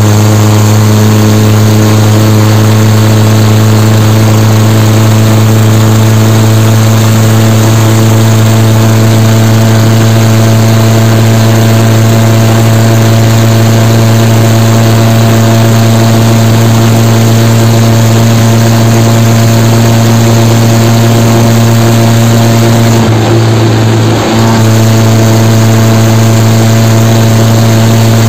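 Diesel tractor engine running at a steady speed under way, its hum holding one pitch, with a brief dip about 23 seconds in.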